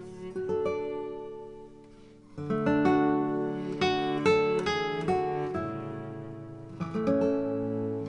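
Background music: acoustic guitar picking and strumming, quieter at first and coming in louder about two and a half seconds in.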